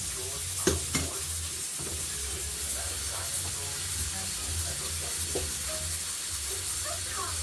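Chicken frying in hot oil: a steady sizzle, with two sharp knocks a little under a second in.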